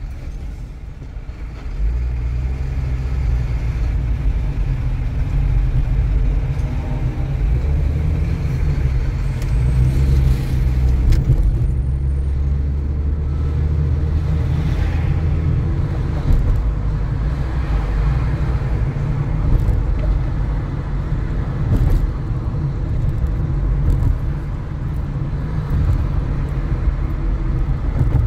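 A car being driven: a steady low rumble of engine and road noise, dipping briefly just after the start.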